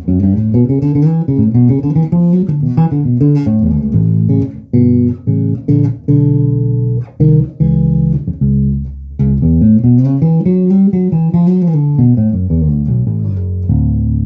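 Carvin Icon 5 five-string bass guitar played fingerstyle through a bass amp: quick runs of notes rising and falling, a few held notes in the middle, and a last note left ringing near the end.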